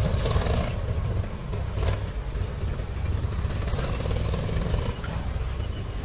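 Mahindra 475 DI tractor's diesel engine running steadily as it pulls a trailer over rough ground, a continuous low engine sound with a couple of short bursts of noise in the first two seconds.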